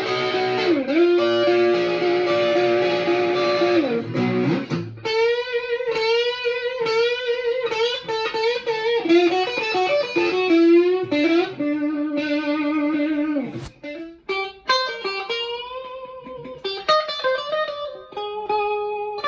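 Electric guitar played through overdrive and wah effects pedals, test-played after their repair: about four seconds of sustained chords, then a single-note melody with string bends and a slide down about two-thirds of the way in.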